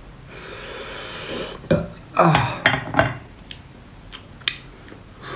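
Eating mouth sounds from someone eating a small sea snail: a drawn-out slurp for about a second, then several short throaty, burp-like grunts falling in pitch, then a few faint clicks.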